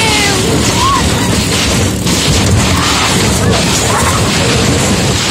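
Steady, loud rush and rumble of a fibreglass paddle boat being dragged over rough ground behind a four-wheeler, with wind buffeting the microphone. A couple of brief high-pitched voice calls sound over it.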